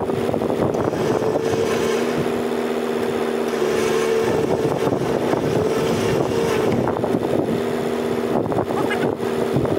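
A 4x4's engine idling steadily, its pitch lifting slightly for a few seconds, over a rushing stream.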